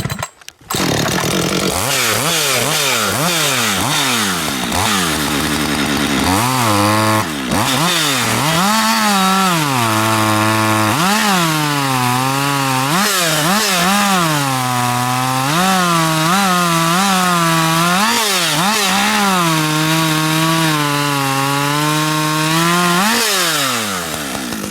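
Two-stroke chainsaw cutting through a log. The engine speed repeatedly sags and recovers as the operator pushes the bar hard into the wood, trying to lug it down without stalling. Near the end the revs climb as the cut finishes, then drop off.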